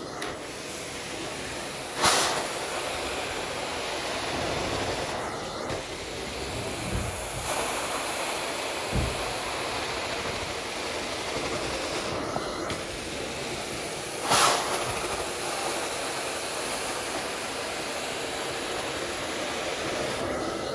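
Carpet-cleaning extraction wand drawing water out of a wet synthetic rug under vacuum suction as it is pulled in strokes: a steady rushing hiss, with short louder surges about two seconds in and again about two-thirds of the way through.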